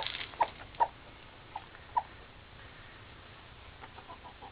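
Broody silkie hen clucking: about five short clucks in the first two seconds, then a few fainter ones near the end. It is the clucking a hen that wants to set her eggs makes when someone comes close, a sign that she is upset.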